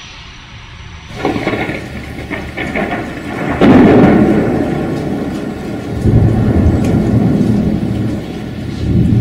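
Thunderstorm with rain: a sharp thunderclap about three and a half seconds in, then long rumbling thunder that swells again about six seconds in and near the end.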